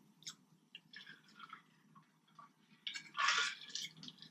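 Close-miked wet chewing and mouth sounds of someone eating sauce-dipped food: scattered small smacks and clicks, with a louder, wetter burst about three seconds in.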